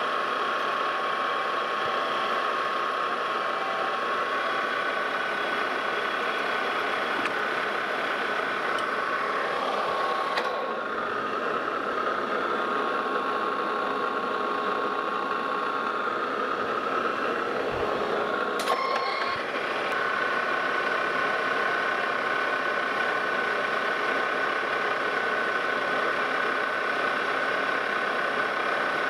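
Lodge and Shipley metal lathe running steadily with a whine while a carbide insert tool turns down the end of a spinning shaft under power feed. A short click comes a little past halfway, and the higher whine grows stronger soon after.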